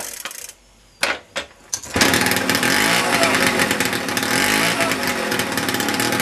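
A Puch E50 two-stroke single-cylinder moped engine fitted with a Simson exhaust. After a few short strokes it catches about two seconds in and runs loudly and steadily. The exhaust manifold joint is not sealing properly.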